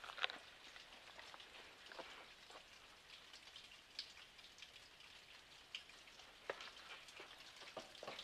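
Near silence with faint, irregular drips and ticks of water, scattered unevenly over a quiet background.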